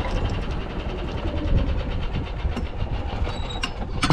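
A small engine running steadily, with a low rumble and a rapid, even ticking. A few sharp knocks come near the end.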